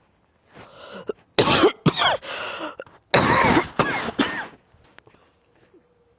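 A person coughing with a lingering bronchitis cough that is clearing up: two fits of several coughs each, the first starting about a second and a half in and the second about three seconds in.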